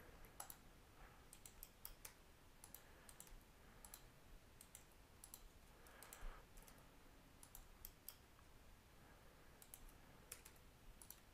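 Faint, scattered clicks of a computer mouse and keyboard against near-silent room tone.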